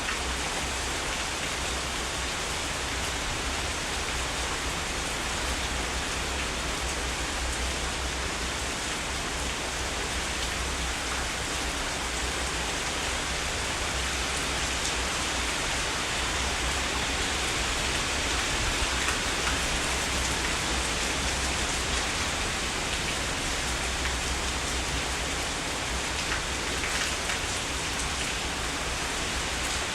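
Heavy rain falling steadily: a dense, even hiss of drops with a low rumble underneath.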